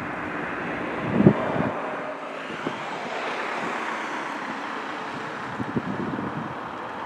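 Boeing 747-400's four turbofan engines at takeoff power during the takeoff roll: a steady jet noise that swells a little in the middle. Wind buffets the microphone in short low gusts, loudest about a second in and again near the end.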